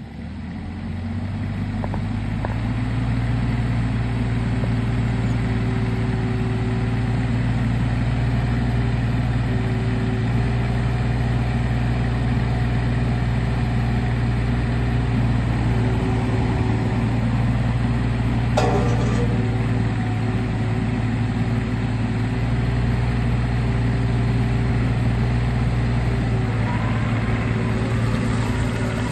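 Kubota U35-3 mini excavator's diesel engine running steadily at an even, idle-like speed. It builds up over the first couple of seconds, and a single brief knock sounds about two-thirds of the way through.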